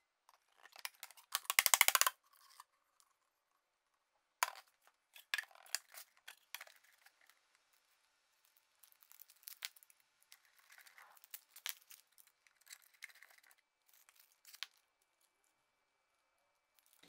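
Aluminium foil HVAC tape being handled: its backing peeled off and the foil crinkling and tearing in short spells of crackle. A brief, loud rattling clatter comes about two seconds in.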